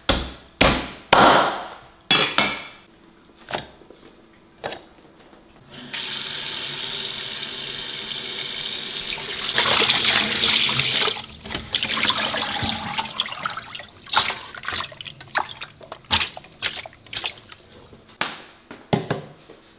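Kitchen tap running into a metal bowl as raw chicken pieces are rinsed by hand, a steady rush of water for about five seconds in the middle that gets louder as the stream hits the chicken and hands, then scattered splashes and sloshing. A few sharp knocks come in the first few seconds.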